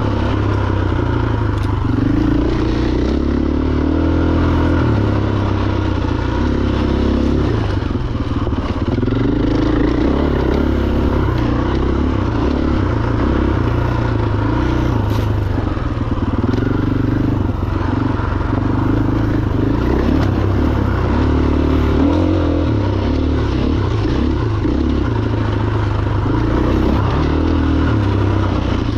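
Husqvarna FE501's single-cylinder four-stroke engine running as the bike is ridden, its pitch rising and falling again and again with the throttle, with some clatter over it.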